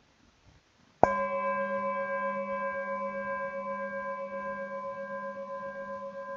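A singing bowl struck once about a second in, then ringing on in a long, slowly fading tone of several partials with a steady wavering beat.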